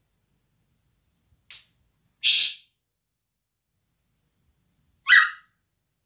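African grey parrot giving three short calls: a faint one, then a loud rasping call, then a loud squawk near the end.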